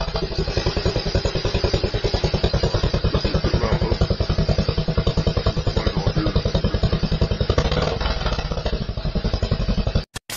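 Harley-Davidson Fat Boy's V-twin engine running as the bike is ridden, a steady, even train of rapid exhaust pulses. It cuts off abruptly near the end.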